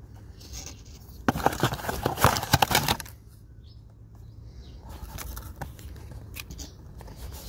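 Small cardboard bulb box being handled and shaken, with a dense rustling rattle for about two seconds starting a second in, then quieter rustling and a few sharp clicks of the cardboard flaps. The rattle comes from loose shards of broken glass inside, the sign of a bulb crushed in transit.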